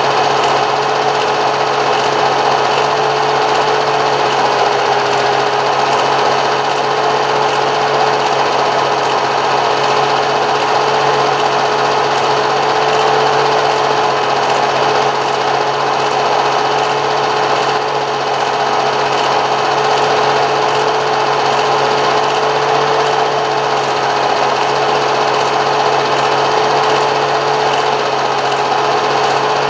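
A steady machine whir with a constant mid-pitched hum, unchanging throughout.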